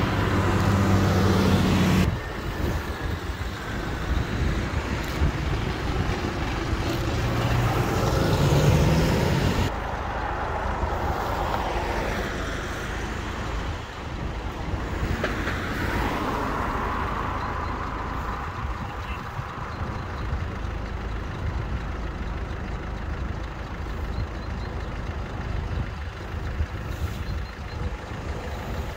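A tractor's diesel engine running as the tractor passes close by, cut off abruptly about two seconds in; a second engine rises in pitch over the next several seconds and stops sharply, then a few cars go past with the rise and fall of tyre noise.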